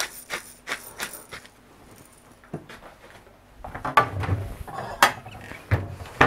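A pepper mill grinding in a few quick turns with a regular clicking, then from about four seconds in a cupboard opened and china plates clattering and knocking together as they are taken out.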